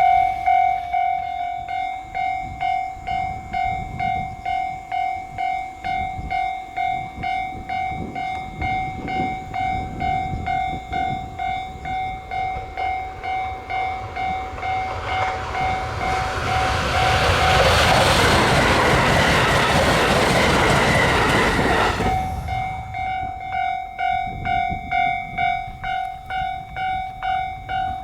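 Japanese level-crossing warning bell ringing in an even electronic ding-ding, a little under two strikes a second. About two-thirds of the way in, a train passes over the crossing for some five seconds, its wheel and running noise drowning the bell, which is heard again once the train has gone.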